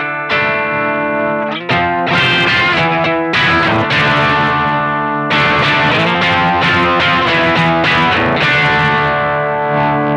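Electric guitar through a BC108 Fuzz Face clone pedal: fuzz-distorted chords strummed and left to ring, with fresh strums about a second and a half, three seconds and five seconds in. This is the pedal tested after its faulty transistor bias was corrected by replacing a resistor with a 10K trimmer.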